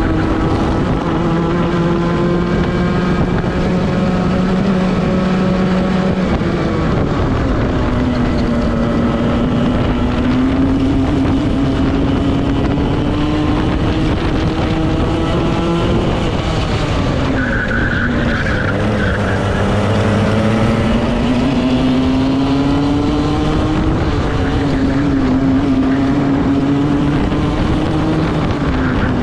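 Onboard sound of a Club100 racing kart's two-stroke engine at race pace. The engine note climbs slowly along the straights and drops sharply into the corners, two big drops with a smaller dip later on.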